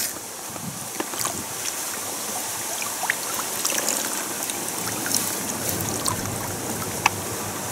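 Water trickling and dripping off a large carp and its wet sling as the fish is lifted out of the river, with scattered small drips and splashes over a steady watery hiss.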